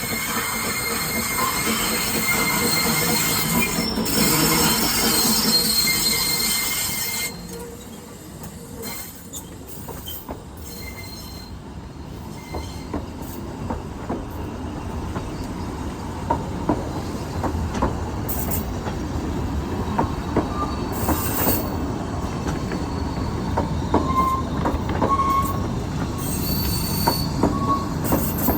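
Ffestiniog Railway narrow-gauge train running on curved track: wheel flanges squealing in thin high tones over a rolling rumble and clicks from the rail joints. For the first seven seconds a loud hissing rush covers it, then cuts off suddenly, and the rumble grows again toward the end.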